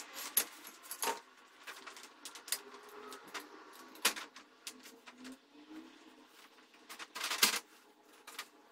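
Metal and plastic parts of a rifle shooting rest clicking and knocking as they are taken apart and handled, with a short clatter of several knocks about seven seconds in that is the loudest.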